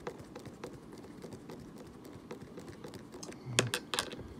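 Screwdriver turning small screws into a plastic headlight mounting tab: faint scattered clicks, with a few louder clicks near the end as the tip is set into the next screw.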